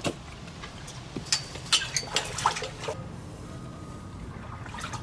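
Aquarium water splashing and dripping as a young mink dives in and swims after goldfish, with a cluster of sharp splashes and small plinking drips between about one and three seconds in, then quieter water movement.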